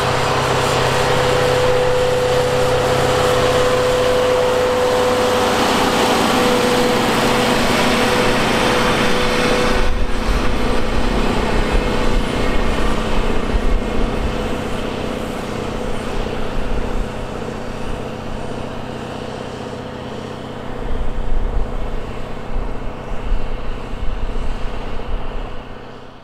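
Heavy tractor's diesel engine running steadily under load while pulling a heavy disc harrow through the field, with a steady whine. About ten seconds in the sound changes, and irregular low rumbling gusts come and go.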